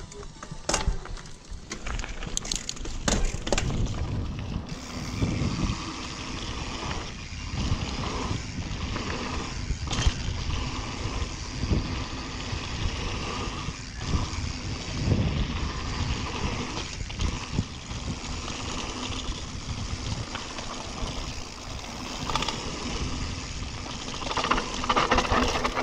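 Mountain bike descending a dirt trail: a steady rush of wind and tyre noise, broken by frequent knocks and rattles from the bike over bumps.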